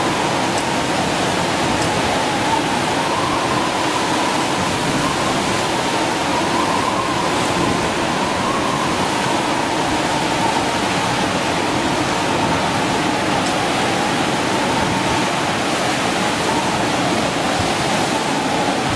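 Storm-driven sea surf and strong wind in a loud, steady rush of noise, with a faint wavering whistle running through it.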